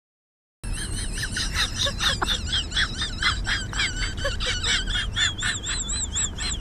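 Many overlapping honk-like bird calls, with a high warbling tone rising and falling about four times a second above them. The sound starts suddenly after silence about half a second in.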